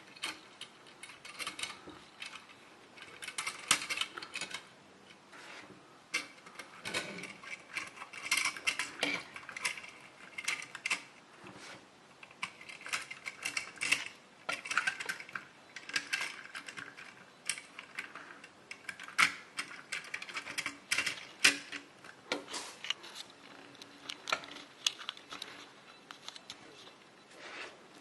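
Toy cars and trucks being handled and moved about: irregular clicks, knocks and rattles, sometimes in quick runs.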